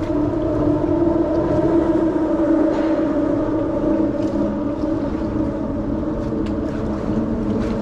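Steady droning hum of traffic crossing the bridge overhead, several steady tones wavering slightly; it swells a little about a second in and eases off after about five seconds.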